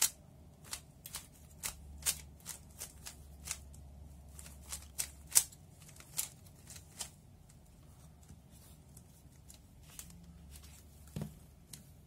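A 3x3 speed cube turned by hand through the Y-permutation algorithm: a quick run of plastic clicks and clacks as the layers snap round, thinning out to a few stray clicks after about seven seconds.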